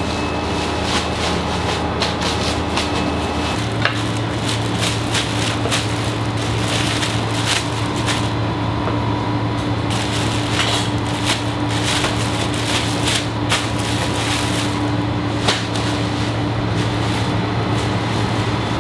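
Plastic bags rustling and crinkling in short bursts as croissant dough is wrapped, over a steady machine hum whose low drone shifts about three and a half seconds in.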